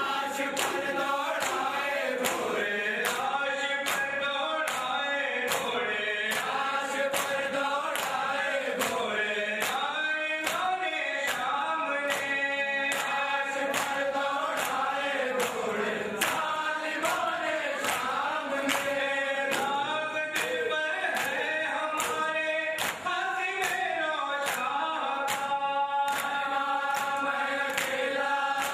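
A group of voices chanting a Muharram lament (noha) for Hussain in unison, the melody rising and falling, over a steady beat of sharp slaps about one and a half times a second.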